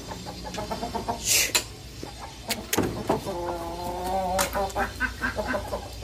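Aseel chickens clucking in short calls, with one drawn-out call about three seconds in that lasts just over a second. A few sharp clicks are heard alongside.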